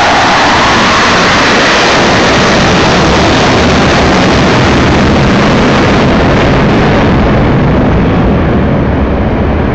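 Four Blue Angels F/A-18 Hornet jets flying past in formation: loud, steady jet engine noise that falls in pitch at the start, then grows duller in the last few seconds as the jets draw away.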